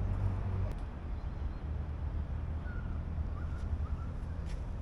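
Steady low rumble of outdoor background noise, with a few faint ticks and some brief faint chirps around the middle.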